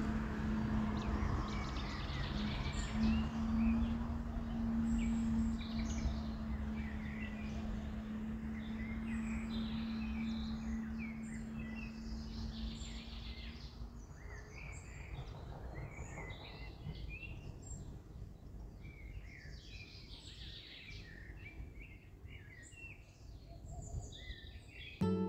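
Wild birds chirping and calling, many short calls overlapping, over a low outdoor rumble. A steady low hum runs under them for the first half and stops about halfway through.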